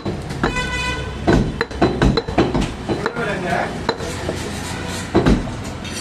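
A heavy butcher's knife chops beef on a wooden chopping block in a string of irregular, sharp chops.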